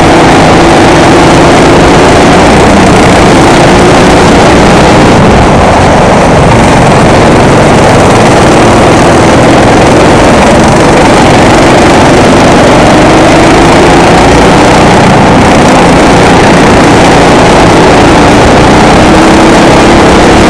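Kart engine running hard at racing speed, its pitch rising and falling with the throttle through the corners, heard from the driver's seat with air rushing over the microphone. Recorded very loud, close to full scale.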